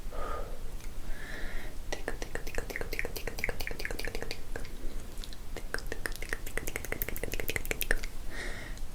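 ASMR mouth sounds close to the microphone: soft breathy, whisper-like sounds, then from about two seconds in a long run of rapid, wet tongue and lip clicks, with another breathy sound near the end.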